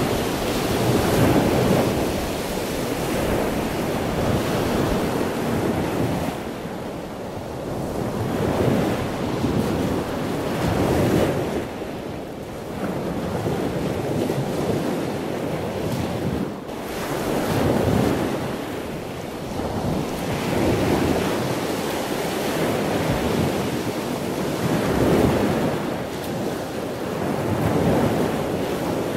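Sea waves breaking on the shore, the surf swelling and washing in again every three to four seconds, with wind buffeting the microphone.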